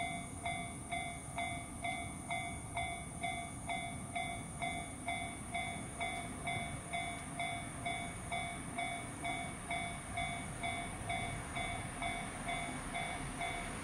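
Japanese level-crossing warning bell ringing in an even electronic ding, about two strikes a second, over the low rumble of a freight train rolling through the crossing.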